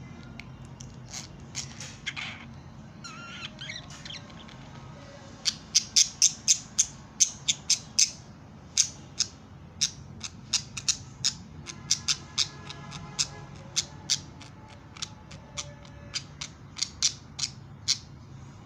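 Pet budgerigars chattering softly, then a long run of short, sharp, high chirps starting about five seconds in, several a second at first and more spaced out later.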